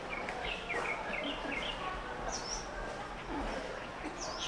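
City park ambience: small birds chirping over a steady background of distant city noise. A quick run of short chirps comes in the first two seconds, and higher, sharper chirps come twice later on.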